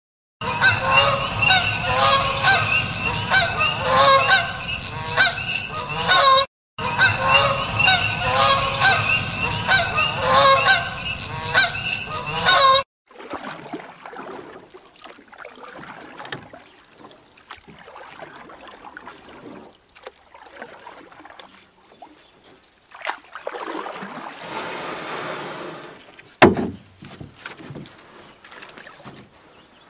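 A flock of Canada geese honking in flight, many calls overlapping, for the first half, with a short break about six seconds in. The honking stops suddenly about 13 seconds in, giving way to much quieter faint outdoor noise with a single sharp knock near the end.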